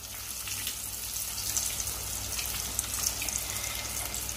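Breadcrumb-coated potato cheese balls, chilled in the freezer, deep-frying in a pan of hot oil: a steady sizzle of bubbling oil with fine crackling throughout.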